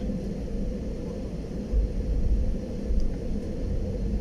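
Jet airliner cabin noise while taxiing, heard from inside the cabin: a steady low engine rumble with a constant hum.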